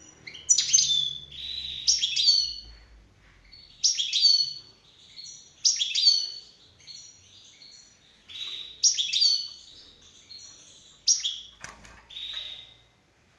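European goldfinch singing: high twittering phrases of quick chirps and short trills, a fresh burst every second or two.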